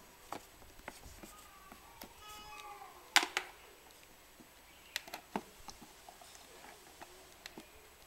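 Several sharp clicks and taps, the loudest a pair about three seconds in, with a faint high call sliding down in pitch a little after two seconds.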